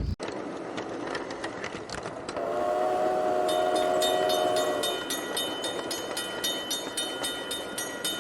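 Locomotive horn sounding one held chord for about three seconds, with a locomotive bell starting to ring partway through and going on at about four strokes a second. A few scattered clicks come before the horn.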